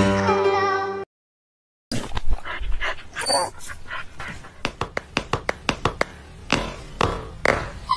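A dreaming dog making a run of short huffs and muffled woofs in its sleep, with a brief whine about three seconds in.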